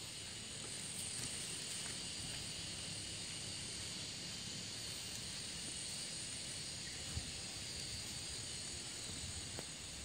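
Rural hillside ambience: a steady high-pitched hiss of insects, with a light low rumble of wind.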